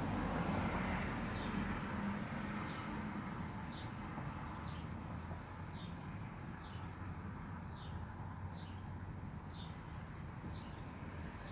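A bird calling with a short, high note that falls in pitch, repeated about once a second. Road traffic rumble fades away in the first couple of seconds.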